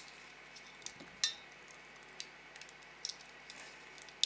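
A few sparse metallic clicks and ticks as pliers grip and work at the metal can of a small car sensor module, with one sharper click about a second in.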